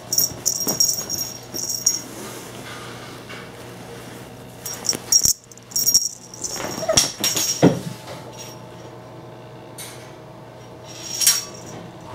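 A kitten's small toy rattling in short jingling bursts as it is carried, dropped and batted during a game of fetch, with a short pitched cry about seven seconds in.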